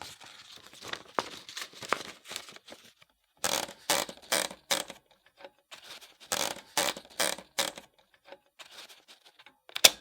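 Typewriter typing: irregular runs of sharp key strikes in bursts with short pauses between, ending with one loud strike.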